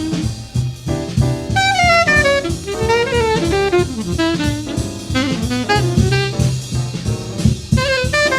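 1947 bebop jazz quintet recording: a fast alto saxophone line over piano, walking bass and drums.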